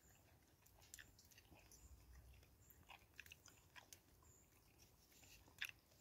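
Faint chewing of food close to the microphone: soft, irregular mouth clicks and ticks, with one sharper click near the end.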